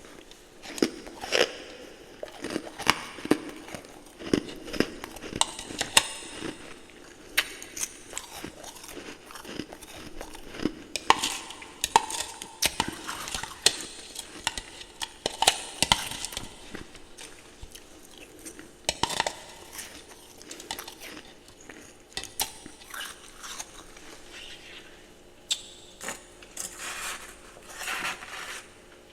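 A person biting and chewing ice, a string of irregular sharp crunches with short pauses between bites.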